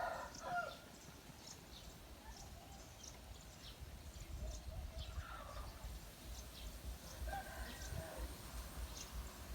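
Chickens calling: a rooster's crow trails off just at the start, then two fainter calls come about five and seven and a half seconds in. Faint high chirps and a low rumble run underneath.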